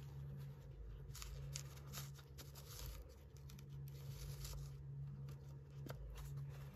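Faint rustling and soft crackling of paper and lace as a handmade mini journal's pages and tags are handled, in a cluster of short rustles that thins out past the middle. A low steady hum runs underneath.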